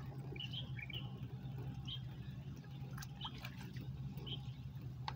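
Scattered short, high chirps of small birds, about one a second, over a steady low hum, with a few faint clicks and drips of water.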